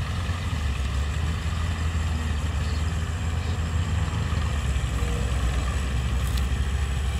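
Diesel engine of a Massey Ferguson 240 tractor running steadily as it pulls a loaded trolley, a continuous low rumble.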